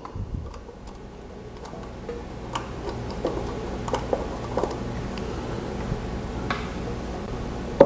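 Small metallic clicks and ticks at irregular intervals as the 12 mm bowl screw of a small engine's carburetor is unscrewed by hand and the float bowl worked loose, over a steady low hum, with one sharper knock near the end.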